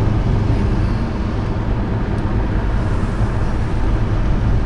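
Steady road noise inside a moving car's cabin: a low rumble of engine and tyres with an even hiss over it.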